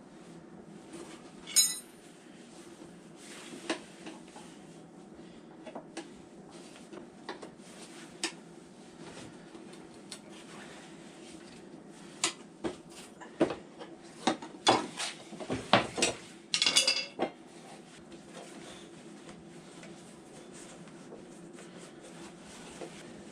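Metal objects clinking and clattering against each other in a workshop: a sharp clink about a second and a half in, a few scattered taps, then a busy run of clinks near the middle, some ringing on briefly.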